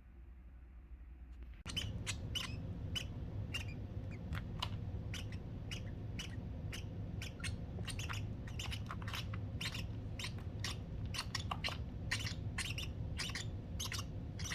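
Baby lovebirds giving rapid, repeated short squeaky begging calls, several a second, asking to be fed. The calls start suddenly about two seconds in, over a steady low hum.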